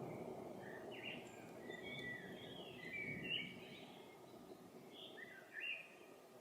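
Songbirds chirping and whistling in quick, varied calls, some sliding in pitch, over the low rumble of distant thunder that dies away during the first few seconds.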